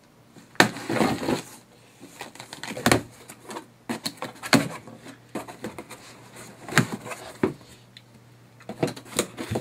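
Cardboard shipping box being torn open by hand: packing tape and cardboard ripping as the flaps are pulled apart, in a series of irregular sharp rips and scrapes.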